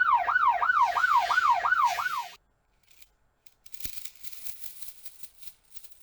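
Electronic siren-like wail, its pitch sweeping up and down about three times a second, that cuts off abruptly a little over two seconds in. Faint rustling noise and a single click follow.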